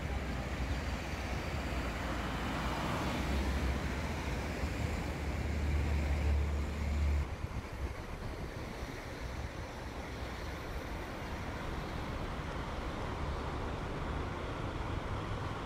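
Wind buffeting the microphone with a low rumble over the noise of cars driving slowly on a snowy road. The rumble cuts off abruptly about seven seconds in, leaving a steadier, quieter hiss.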